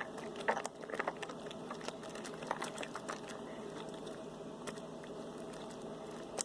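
Sticky slime made with glue and borax being mixed and worked, giving irregular small clicks and taps, thickest in the first few seconds. The mixture is still not coming together.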